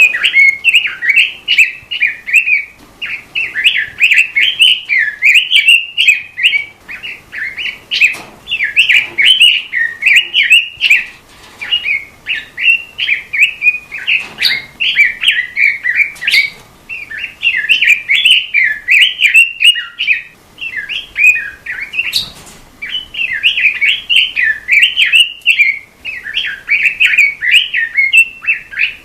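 Robin songbird singing a long run of rapid, chirping warbles in phrases separated by brief pauses.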